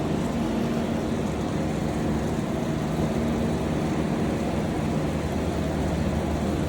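A vehicle engine's steady low drone, heard over the even hiss of falling rain.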